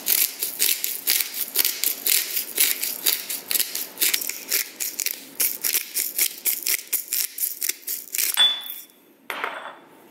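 Pepper mill grinding black pepper into a bowl of flour: a rapid run of short gritty crunches, about five a second, that stops about eight seconds in.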